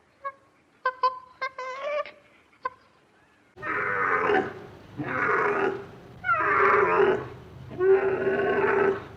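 Animal calls: a few short, high calls, then about three and a half seconds in, four loud, drawn-out calls of about a second each.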